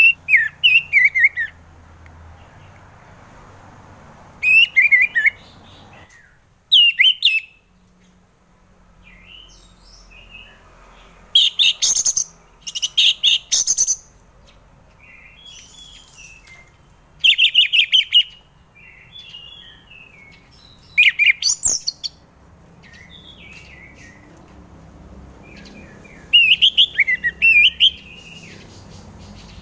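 Orange-headed thrush singing: about eight loud, quick phrases of rapid high whistled notes, each a second or so long and a few seconds apart, with softer twittering between them.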